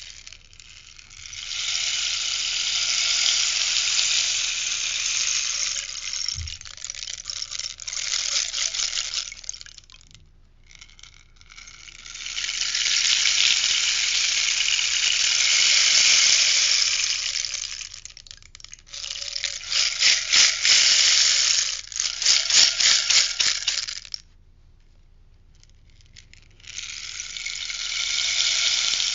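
Rainstick: pellets trickling down through the tube in long hissing cascades of several seconds each, with brief pauses as it is turned over. In the second half the cascade breaks into quick pulsing strokes before a pause, and a new pour starts near the end.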